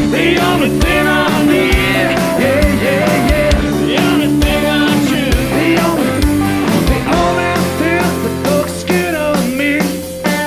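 Rock music with a sung vocal and guitar over a steady beat.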